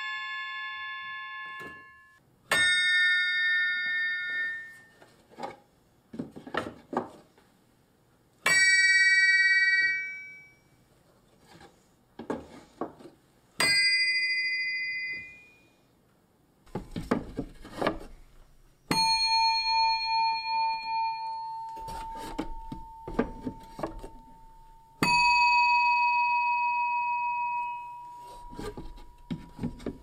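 Hammer-struck metal bells of a homemade keyboard instrument (Flexiphone bell carriage), played as notes and small chords. About five strikes ring out bright and shrill with many overtones and die away over a second or more. Clacks of the wooden key action fall between them.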